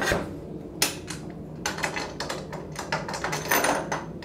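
Quick metal clicks and rattles from the locking hardware of a 1954 Shopsmith Mark V as a table is fitted and its lock is turned by hand, with a sharp knock about a second in.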